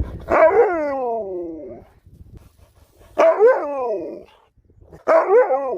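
Alaskan malamute answering with three pitched, talking-style howls. The first is long and falls in pitch; the second, about three seconds in, rises then falls; the third comes near the end.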